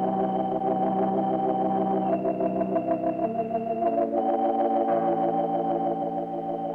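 Background organ music: sustained chords with a wavering vibrato, moving to new chords a few times.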